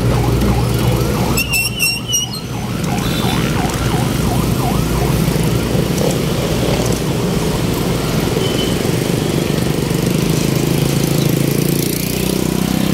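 Road traffic with vehicle engines running, and a repeated warbling electronic warning tone, about two or three cycles a second, that fades out about four seconds in.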